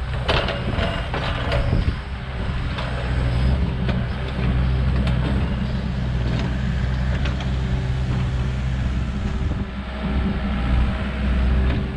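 Tracked excavator's diesel engine running steadily under work, with sharp knocks and rattles, thickest in the first couple of seconds.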